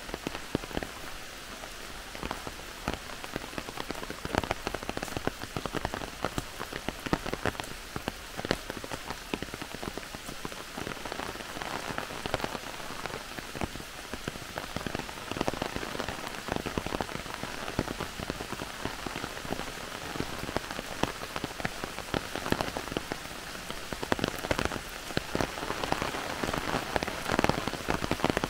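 Heavy rain falling through a forest, a steady hiss of rain with many separate drops striking close by, growing a little heavier near the end.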